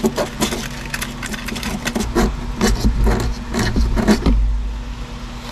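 Sandpaper rubbed by hand against a car's painted steel firewall in quick strokes, about four a second, scuffing the paint down to bare metal for a ground strap. A low rumble runs underneath for a couple of seconds in the middle.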